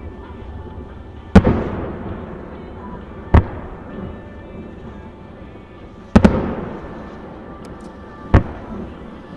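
Aerial firework shells bursting: four loud bangs about two to three seconds apart, the third a quick double crack. The first and third trail off in a long rolling rumble.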